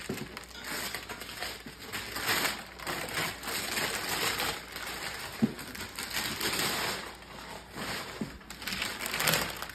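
Gift wrapping paper being torn by hand off a large cardboard box, a series of irregular rips and crinkles.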